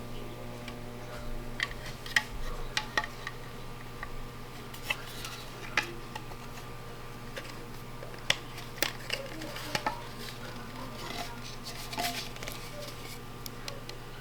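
Scattered small clicks and taps of screws and light-assembly parts being handled and fastened by hand, over a steady low electrical hum.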